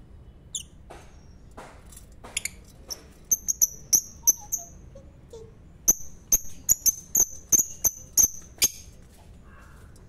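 Lovebirds chirping: shrill, short high-pitched calls given in two quick runs, one about three seconds in and a longer one from about six seconds in, after a few softer chirps.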